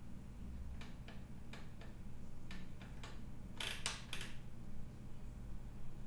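Scattered light clicks of computer input at the desk: a few single clicks, then a quicker, louder run of three about three and a half seconds in, over a low steady hum.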